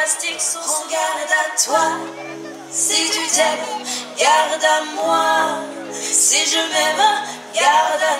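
Song with a woman singing over sustained accompaniment chords: the music for a synchronized swimming routine.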